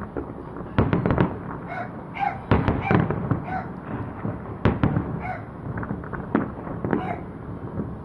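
Fireworks going off in irregular clusters of sharp bangs, several in quick succession, with short gaps between clusters.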